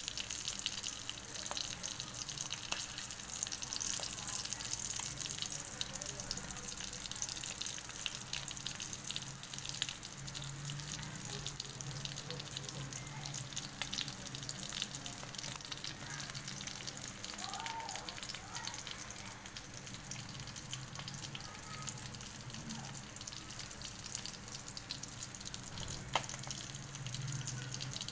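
Whole fish frying in hot oil in a pan: a steady sizzle with a dense, continuous crackle of small pops.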